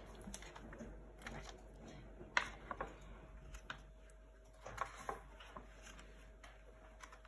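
Pages of a paper sketchbook being turned and handled: short, faint paper rustles and taps, the sharpest snap about a third of the way through and another cluster just past the middle.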